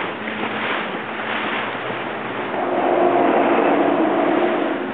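Motorboat under way: wind and rushing water over the engine's steady hum, with the engine note growing louder a little past halfway for a couple of seconds.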